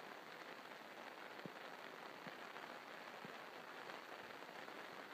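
Faint, steady hiss like trickling or splashing water, with three soft ticks in the middle.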